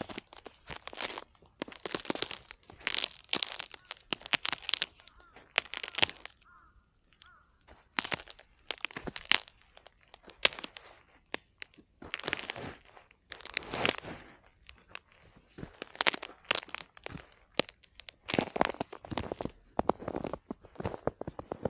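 Footsteps crunching through snow, step after step in uneven runs, with a short pause about six seconds in.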